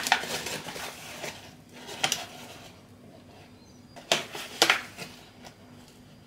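Paper flour bag rustling and a metal spoon scooping brown bread flour into a plastic measuring jug: a scratchy rustle that fades over the first second, then a few short sharp crinkles, the two loudest about four seconds in.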